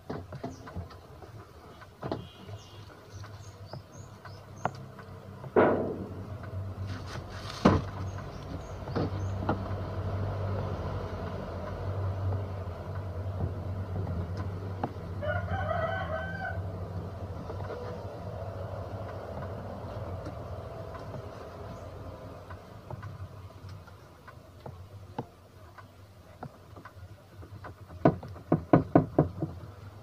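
Clicks and knocks of hands handling parts inside a washing machine's spin-dryer motor compartment, with a quick run of clicks near the end. A low steady hum runs through the middle, and a rooster crows briefly about halfway.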